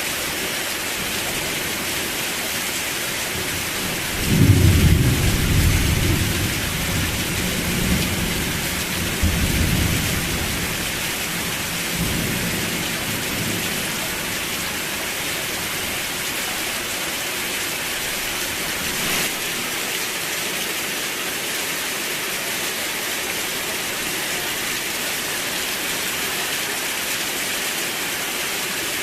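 Steady rain falling, with a roll of thunder that starts suddenly about four seconds in and rumbles away over about ten seconds.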